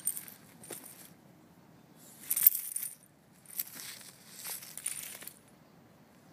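A dog biting and tearing at a wooden stump, the wood crunching and splintering in a series of bursts, the loudest about two and a half seconds in.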